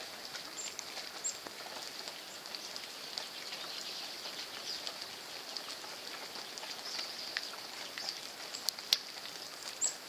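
Light rain pattering steadily, with many small drop ticks and a few faint high bird chirps; one sharper tick near the end stands out as the loudest.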